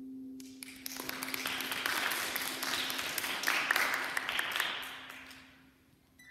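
A small audience applauding for about five seconds, with a held harp note still ringing underneath. The clapping dies away just before the harp starts again at the very end with a short falling run of plucked notes.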